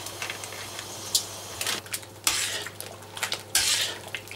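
Metal spoon stirring and scraping against the inside of a cast-iron kazan of hot soy-sauce marinade, with several scraping strokes in the second half.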